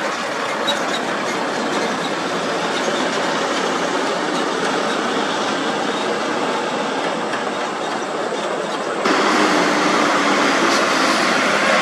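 Heavy trucks passing close by: diesel engines running under load, with tyre noise and the rattle of lowbed trailers carrying heavy machinery, as a steady noisy rumble. About nine seconds in it turns abruptly louder, with a low engine drone from a MAN TGS tractor unit hauling an excavator on a lowbed trailer.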